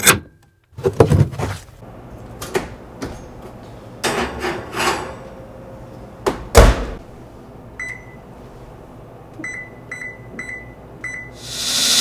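Kitchen range oven door being handled, opened and shut, with knocks and a heavy thump about six and a half seconds in. Then five short electronic beeps come from the oven's control panel as it is set.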